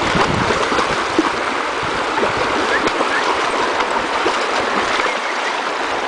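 Mountain stream running over rocks: a steady rushing and babbling of water, with a brief sharp tick about a second in.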